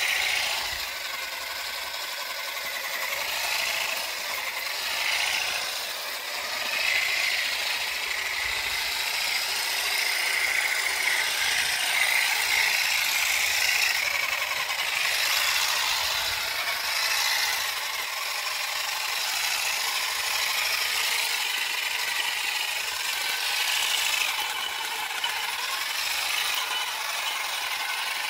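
GeoTech Olive Picker 400 EVO battery-powered olive harvester running, its oscillating combs shaking and clattering through olive branches in a steady, continuous rattle.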